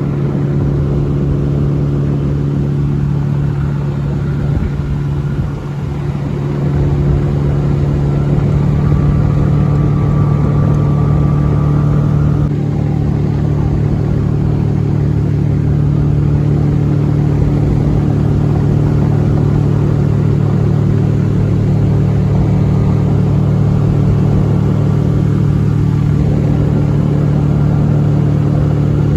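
Boat's outboard motor running steadily under way, a constant-pitch engine hum that grows a little louder about seven seconds in.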